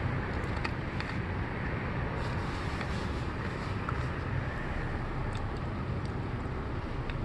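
Steady low rumble of a car's idling engine, heard inside the cabin, with a few faint clicks.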